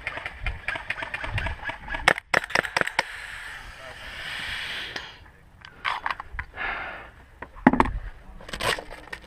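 Airsoft gunfire: a quick series of sharp cracks and clicks, followed by rustling and scraping with a few louder knocks, the loudest about three-quarters of the way through.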